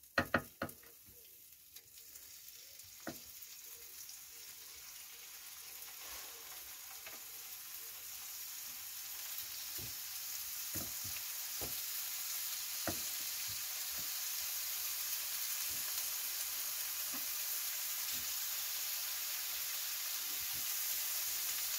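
Rolls of beef carpaccio wrapped around emmental sizzling in a hot frying pan, the sizzle growing steadily louder as the pan fills, with a few sharp knocks at the start and scattered clicks of metal tongs against the pan.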